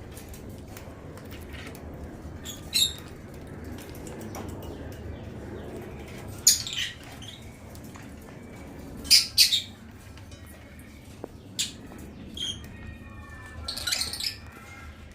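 African lovebirds giving short, shrill chirps every few seconds, a few in quick pairs, over a steady low background noise.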